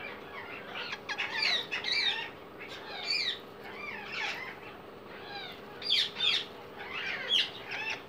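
Alexandrine parakeet nestlings giving begging calls as they are handled: repeated short, squeaky chirps in clusters of a few at a time, with a faint steady hum beneath.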